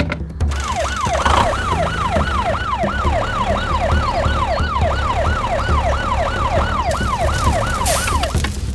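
Fire truck siren sounding in quick falling sweeps, about three a second, that stop shortly before the end. Background music with a low beat plays underneath.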